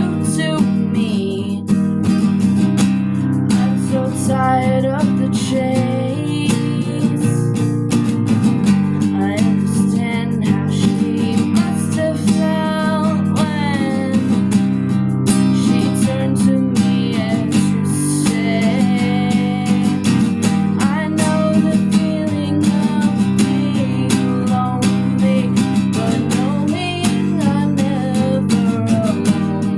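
Instrumental section of a song on acoustic guitar: strummed chords with picked notes, no singing.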